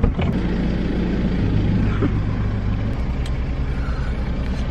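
Car cabin noise while driving: a steady low engine and road rumble heard from inside the car.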